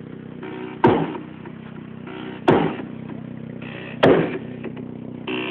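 Car sound system with subwoofers and horn tweeters playing loud, heavy hits about every second and a half, each dying away quickly, over a steady low drone.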